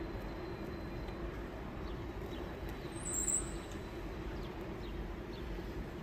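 Steady low hum of distant city traffic, with faint chirps of small birds and one brief high-pitched chirp about three seconds in.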